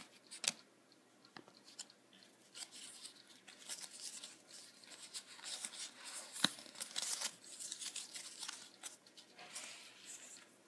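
Faint rustling and sliding of Pokémon trading cards being handled and flipped through in the hands, with scattered small clicks and one sharper click about six and a half seconds in.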